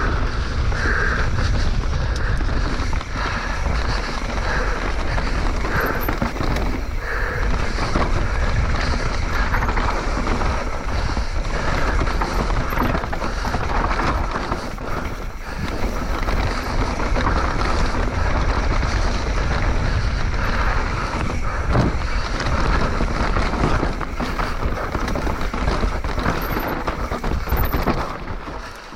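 Mountain bike descending a rough, dusty rock-strewn trail at speed: wind buffeting the microphone in a steady low rumble, tyres scrabbling over loose dirt and rocks, and the bike rattling and knocking over the bumps. The noise eases briefly near the end.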